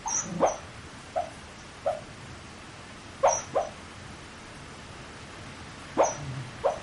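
A sleeping dog sleep-talking: short mumbling yips and woofs, about eight of them in small bunches separated by pauses.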